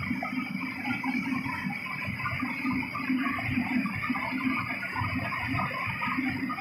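Water running steadily from the tap of a commercial wok range into its basin, mixed with the gas wok burner and the boiling stew in the wok.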